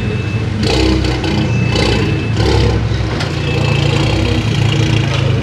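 Volkswagen Golf touring race car's turbocharged four-cylinder engine running at low speed as the car is edged around the trailer ramps. It gives three short throttle blips in the first three seconds, then settles to a steady low run.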